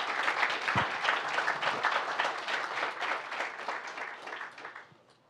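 Audience applauding: many hands clapping, fading away near the end.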